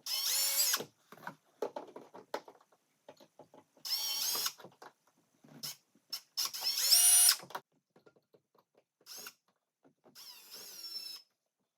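Power drill with a 1/8 inch bit drilling out the rivets that hold a panel, run in four short bursts with its motor whine rising and falling as the trigger is squeezed and released, the third burst the loudest. Small clicks and taps come between the bursts.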